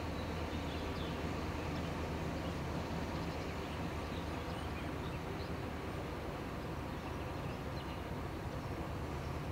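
Steady low drone of an inland river ship's diesel engine running at cruising speed, with faint bird chirps over it.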